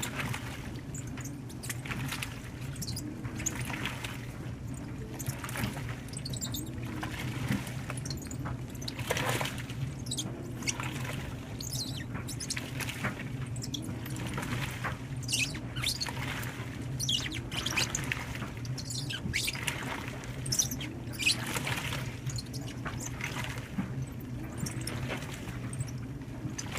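A 2012 LG top-load washer agitating a heavy-duty load of towels and shoes: water sloshing, with the rubber Crocs and tennis shoes squeaking against the drum every second or two over a steady low hum.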